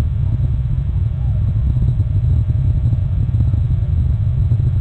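Steady low rumble with an uneven, buffeting flutter, typical of wind on an outdoor camera microphone.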